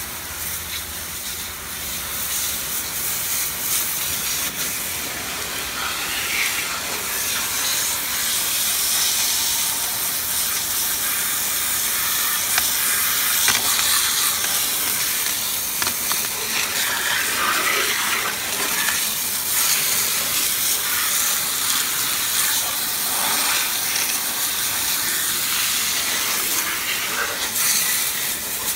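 Hard, narrow water jet from a garden-hose nozzle hissing as it blasts caked grass off the underside of a lawnmower deck, with spray and splashing off the deck and blade. The hiss builds over the first few seconds, then holds steady, swelling and dipping as the jet is swept across the deck.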